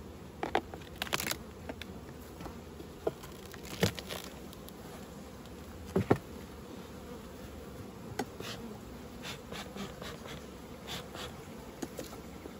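Honeybees buzzing steadily around an opened hive, with a few sharp knocks and clunks as a wooden honey super is knocked loose and set down on another box; the loudest clunk comes about six seconds in.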